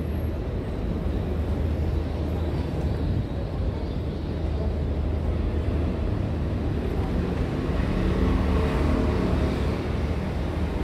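City street ambience: a steady low traffic rumble, growing a little louder near the end.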